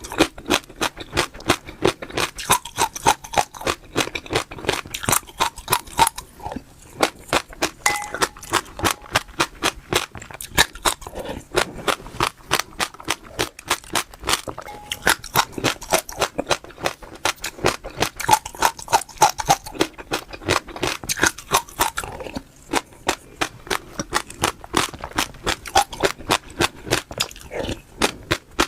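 Crunchy food chewed close to the microphone: a fast run of crisp crunches, several a second, easing off briefly twice.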